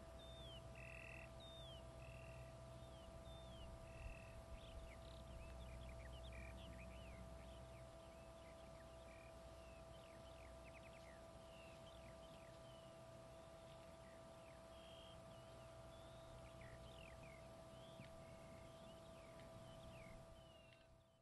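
Faint outdoor ambience of birds chirping: many short chirps and quick whistles over a steady faint hum and low wind rumble. It fades out near the end.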